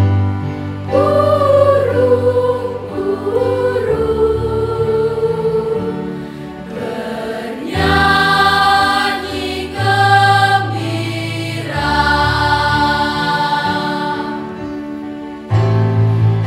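Mixed junior high school choir singing in parts, holding chords in long phrases that swell and fade.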